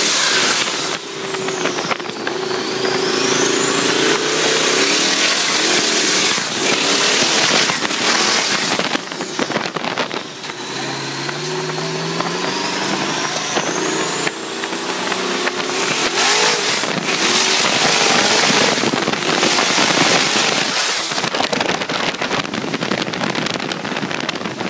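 Twin-turbo sand truck's engine running hard under load, its pitch wavering as the throttle comes on and off. The turbochargers' high whistle rises and falls several times over the engine and the rush of wind and tyres, heard from inside the cab.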